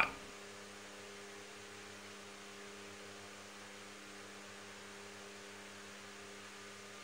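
Steady electrical hum at a low level, with no other sound.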